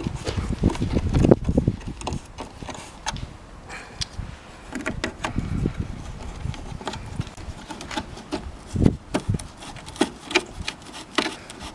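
Scattered light clicks and knocks of handling, with a few sharper knocks near the end and some low rumbling.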